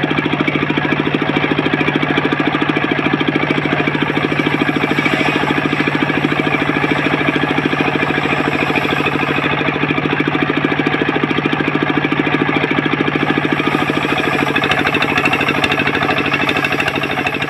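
The engine driving a circular table saw runs steadily with a fast, even knocking beat while the blade cuts coconut-wood planks. A higher hiss of the cut swells twice, about four seconds in and again near the end.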